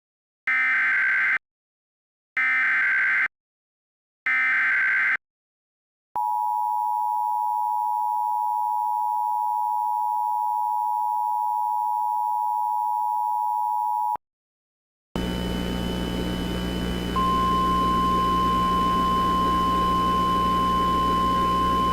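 Emergency Alert System tones: three short, harsh digital data bursts (the SAME header), then the steady two-tone attention signal for about eight seconds. After a brief silence comes hissing radio static with a hum, and about two seconds later the steady single-pitch NOAA Weather Radio warning alarm tone joins in.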